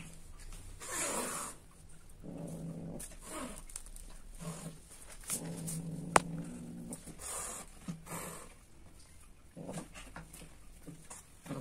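Domestic cat in heat calling: several low, drawn-out moaning calls, each lasting up to a second or so, with a sharp click about six seconds in.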